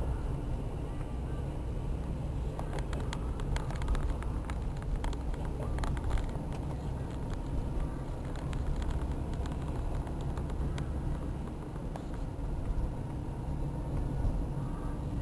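Inside a moving car's cabin: steady engine and tyre rumble on a wet road, with scattered light clicks.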